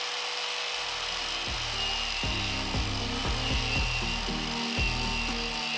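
Angle grinder running steadily against the engine-bay sheet metal with a high whine, grinding it down around small holes ready for welding. Background music with a bass line and steady beat comes in under it about a second in.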